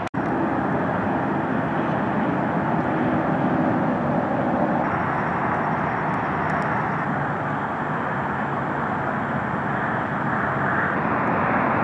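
Steady outdoor background noise, an even rumble and hiss that shifts slightly about five seconds in and again near the end, after a brief dropout at the very start.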